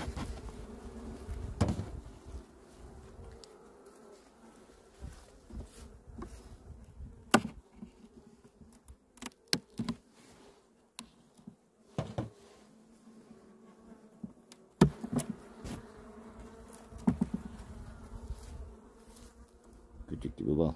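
Honey bees humming steadily from an opened hive. Sharp knocks and scrapes of a metal hive tool prying the wooden frames loose cut in several times, the loudest about halfway through and again three-quarters of the way in.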